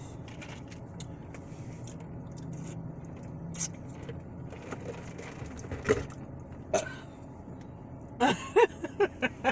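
Low steady hum with scattered faint clicks, and a single knock about six seconds in. Near the end come a few short bursts of voice.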